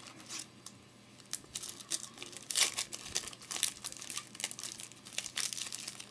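Foil wrapper of a Topps UFC trading-card pack crinkling and tearing as it is handled and ripped open, in a quick, irregular run of sharp crackles that is loudest about two and a half seconds in.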